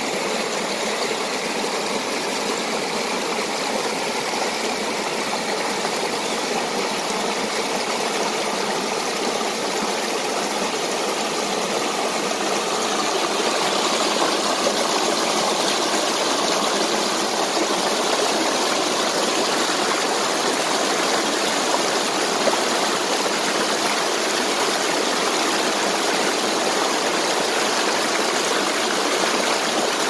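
Creek water rushing and splashing over rocks, a steady rush that grows louder a little under halfway through. In the first half a faint steady whine from the RC crawler's electric motor and gears runs under it.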